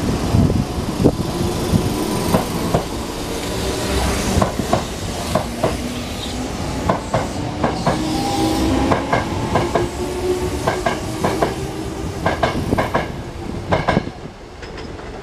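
A Sanyo Electric Railway 5000 series electric train departs and gathers speed past the platform. Its traction motors whine, rising in pitch, while the wheels click over the rail joints faster and faster. The sound drops away about 14 seconds in as the last car passes.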